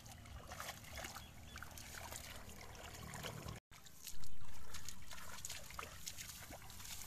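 Small splashes and trickling of shallow muddy water stirred by bare feet and hands wading and groping for fish, with a short break about halfway and a louder swell just after that fades over about a second.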